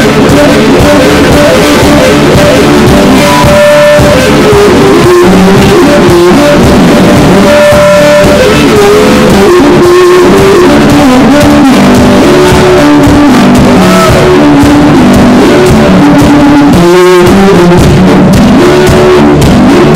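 Live music: an electric guitar playing over a drum beat, picked up very loud, near the top of the recording's level.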